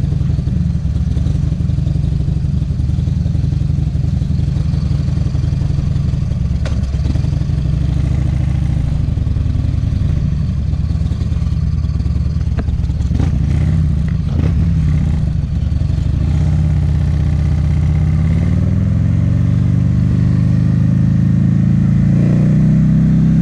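Buell XB12Ss motorcycle's Sportster-derived V-twin running through a Jardine full exhaust, idling loud and steady just after start-up while still cold. There are a few clicks and knocks around the middle. In the last several seconds the engine speed climbs steadily.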